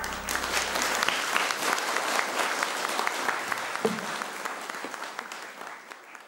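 Audience applauding at the end of a song, while the backing music's last low note dies away in the first second. The clapping fades out near the end.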